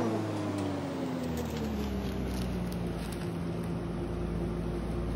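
Steady hum of operating-room machinery. One tone slides down in pitch over the first two seconds and then holds steady, a low rumble comes in, and a few light clicks sound.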